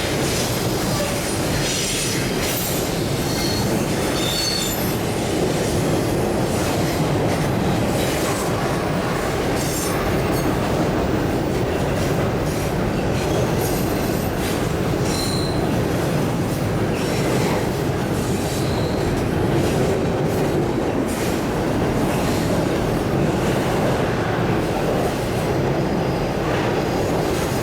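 A train's cars rolling past on the rails in a steady rumble, with short high-pitched wheel squeals coming and going throughout.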